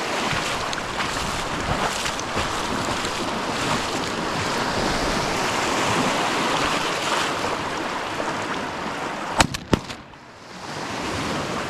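Lake waves washing against the shore, with wind buffeting the microphone. A quick cluster of three sharp knocks comes near the end.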